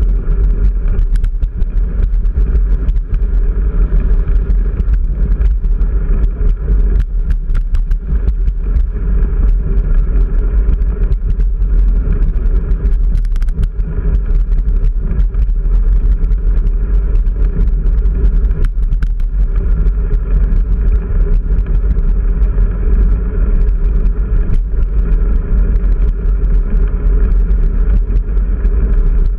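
A bicycle ridden at speed over rough asphalt, heard through the handlebar camera's microphone as a loud, steady low rumble of wind and road noise, with frequent short clicks and knocks.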